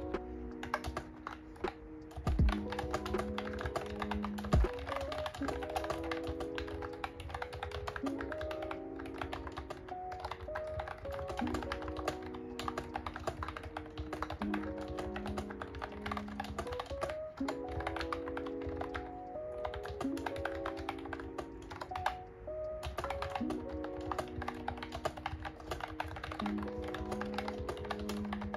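Fast, continuous typing on a Mofii Candy wireless keyboard with round typewriter-style keycaps: a dense patter of key clicks with a few heavier knocks early on and one brief pause, over lofi background music.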